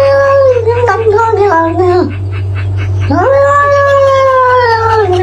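Calico cat yowling in two long, drawn-out calls. The first wavers and steps down in pitch before breaking off about two seconds in, and the second starts about a second later. A steady low hum runs underneath.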